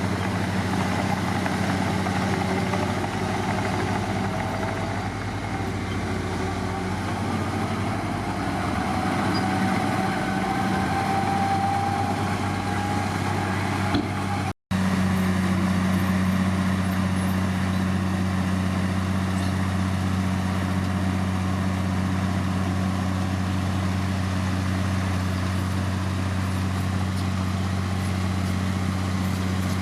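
Heavy diesel engine of earthmoving machinery running steadily, with a faint rising whine in the first half and a brief dropout about halfway through.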